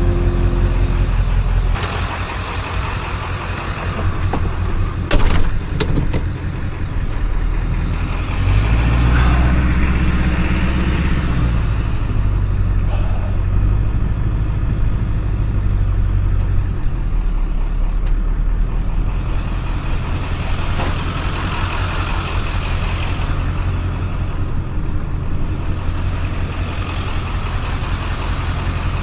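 Vehicle engine and road noise while driving, a steady low rumble that grows louder and deeper for several seconds in the middle. A sharp knock about five seconds in.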